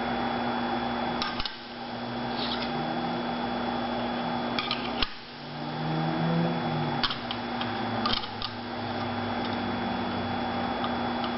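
Skate sharpening machine running with a steady hum, with a few sharp clicks and clacks of metal parts being handled over it.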